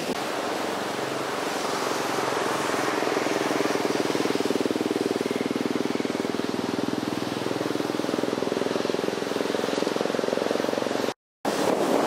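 Storm-driven surf and wind rushing on the microphone, with a steady engine hum underneath from about a second in. The sound drops out for a moment near the end.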